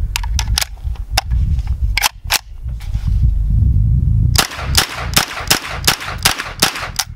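Century Arms NAK9-X 9mm AK pistol fired semi-automatically: a few sharp reports in the first couple of seconds, then a quick string of about nine shots, roughly three to four a second, until the magazine runs empty.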